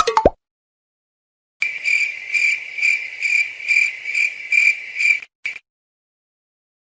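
Cricket-chirping sound effect: a steady high trill pulsing about twice a second for nearly four seconds, which cuts off abruptly and is followed by one short chirp.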